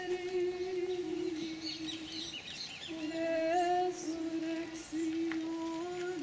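Women's voices singing a slow processional hymn in unison, long held notes moving in small steps. A bird chirps several times about two seconds in.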